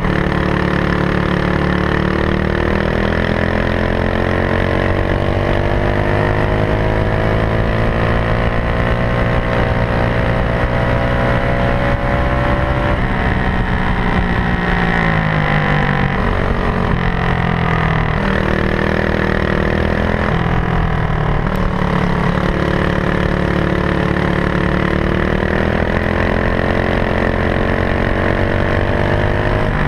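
Racing go-kart engine running flat out on track, its pitch climbing steadily on the straights and dropping each time the driver lifts off for a corner, a few times over.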